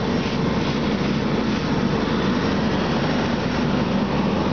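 Steady drone of a running engine or machine, even in level throughout.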